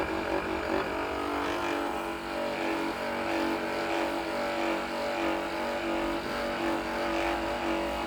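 A small electric motor running steadily at an even pitch.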